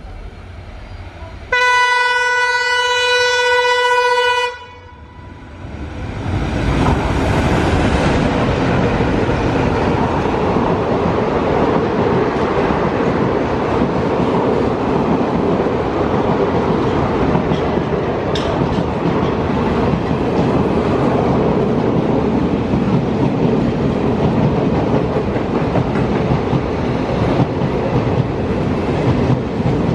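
Twin Alco diesel locomotives sound one long horn blast of about three seconds. Then the express passes at speed without stopping, and its coaches rumble and clatter over the rail joints in a loud, steady din.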